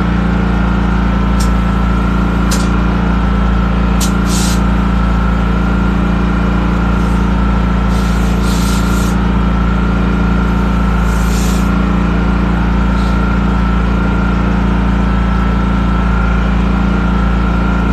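Compressed air hissing in several short bursts as a newly mounted tire is inflated through an air chuck, over a steady engine drone.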